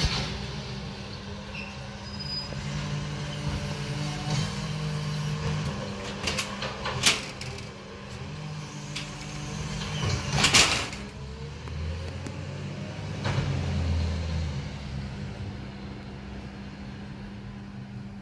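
Side-loader garbage truck at work: its engine and hydraulics run steadily under several sharp knocks and bangs as bins are handled, the loudest bang about ten seconds in.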